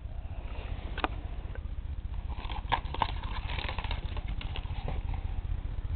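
Close handling noise: rustling with small taps and clicks over a low rumble, and single louder clicks about a second in and twice near three seconds in.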